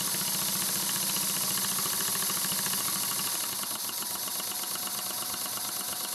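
Model twin marine steam engine (SteaMech) running on one cylinder on compressed air: a rapid, even chuff of exhaust over a steady hiss. The hiss eases a little about three and a half seconds in. It is running in the direction it runs best in, needing much less air pressure this way.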